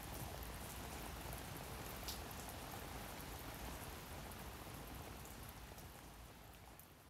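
Rain falling steadily: an even patter with scattered single drops. It fades over the last few seconds and then cuts off abruptly.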